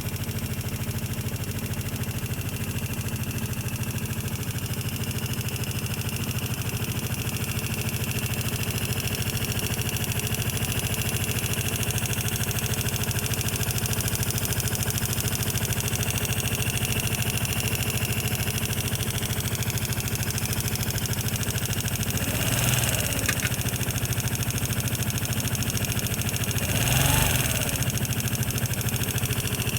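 Vespa LX150 single-cylinder four-stroke scooter engine idling with a steady ticking, blipped briefly twice near the end. The valves were found tight on adjustment and the ticking is unchanged afterwards, so it is not from loose valves.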